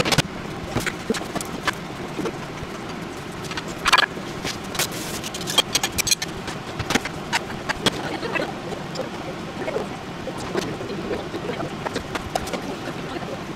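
Dishes and metal tongs clinking and knocking as they are set down on a wooden counter, with a louder clatter about four seconds in, over a steady rushing background noise.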